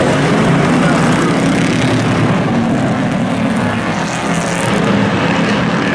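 Engines of several pickup race trucks running together at racing speed on an oval track: a loud, steady drone of overlapping engine notes.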